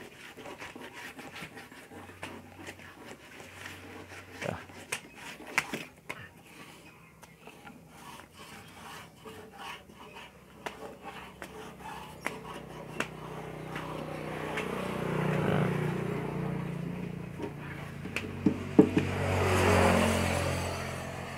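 Hands rubbing and pressing a freshly glued patch onto a motorcycle fuel tank: light scrapes and rubs with scattered small taps and clicks. Later, two swells of engine noise rise and fade, vehicles passing.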